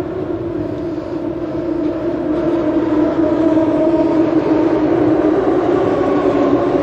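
Boat engine running steadily underway, a constant drone with a steady hum.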